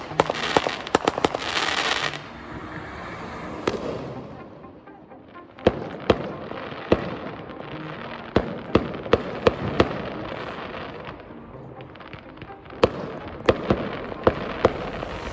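Fireworks going off at a display: a dense spell of crackling for about the first two seconds, then single sharp bangs and cracks, often a few in quick succession.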